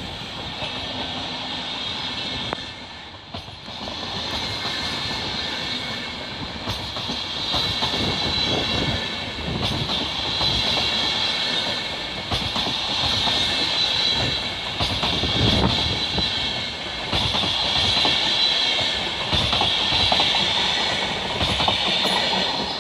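Deutsche Bahn Intercity passenger coaches rolling past close by, wheels clattering over rail joints and points with a steady high-pitched whine above the rolling noise. The clatter grows busier after the first few seconds as the coaches and the driving trailer go by.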